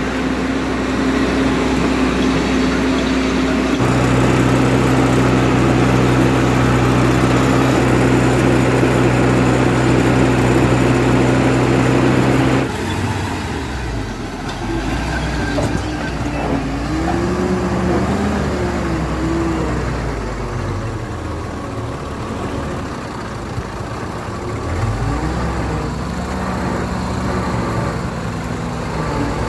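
Heavy diesel engine of a JCB 3DX backhoe loader, running at a steady speed and then, after an abrupt change about 13 seconds in, revving up and down repeatedly.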